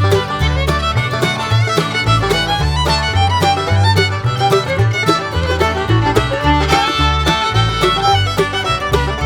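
Background music: an up-tempo bluegrass-style tune led by fiddle over a steady, pulsing bass line.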